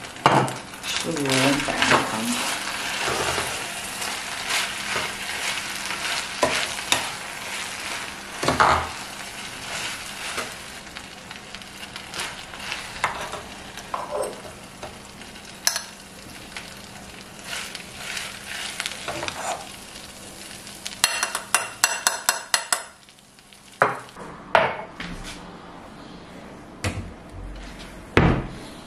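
Metal serving spoon scraping and knocking against a non-stick pot and a ceramic bowl as cooked rice is dished out, with a quick run of taps a little before the end.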